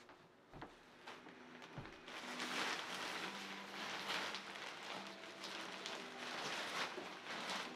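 Built-in blower fan of a self-inflating airblown yard inflatable starts about two seconds in and runs with a steady hum and rush of air. The thin nylon fabric rustles and crinkles as it is handled and fills.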